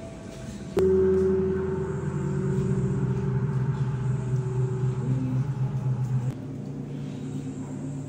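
Low ambient drone music: several deep, steady tones that start suddenly about a second in, shift briefly in pitch around five seconds, and drop in level a little after six.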